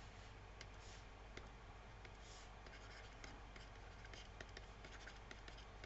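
Faint scratching and light taps of a stylus writing by hand on a tablet, irregular short strokes over a steady low hum.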